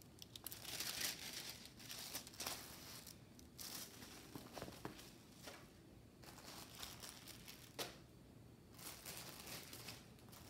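Faint rustling and crinkling of a diamond painting canvas and its clear plastic cover film being handled and put aside, coming in several separate spells of a second or so.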